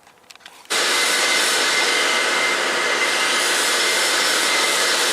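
A loud, steady rushing noise with a faint steady whine, like a fan or blower, starts abruptly less than a second in, after a few faint clicks.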